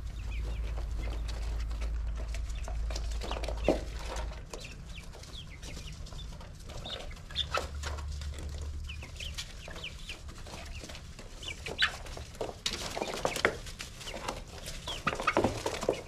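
Young Australorp and Rhode Island Red chickens cheeping and clucking in short, high chirps scattered throughout. A low steady hum runs under them for the first four seconds and comes back briefly around the middle.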